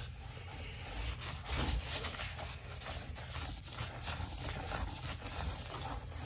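A rag scrubbing a foam-soaked rubber lawn mower tire, in a run of quick, irregular rubbing strokes.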